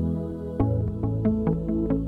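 Background music: held chords with a run of short plucked notes over them, the chord changing about half a second in.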